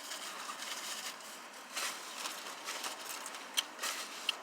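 Faint rustling with a few light clicks and scrapes, from takeout food packaging and napkins being handled while eating.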